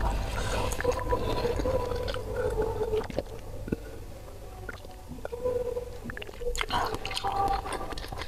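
Close-miked mouth sounds of a person drinking water from a glass jug: swallows, small wet clicks and lip sounds, with held hummed tones between sips, cooling a mouth burned by very spicy ramen.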